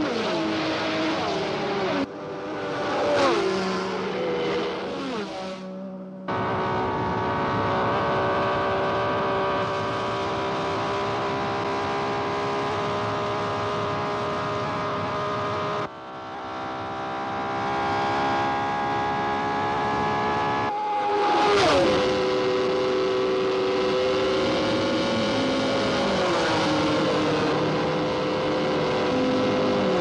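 1960s Formula One racing car engines running at high revs, with cars passing and their engine note dropping in pitch as they go by. The sound changes abruptly several times; in the middle a steady high engine note rises slowly, and a car sweeps past with a sharp fall in pitch about twenty-one seconds in.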